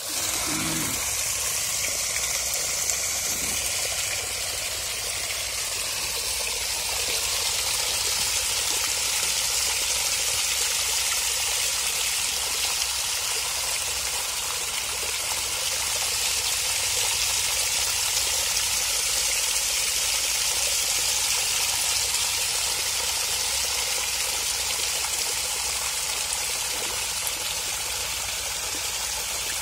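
Water gushing and splashing steadily out of a split in a steel pipe's longitudinal weld seam, with a low hum underneath: the 300 NB ERW pipe's long seam has failed under hydrotest pressure.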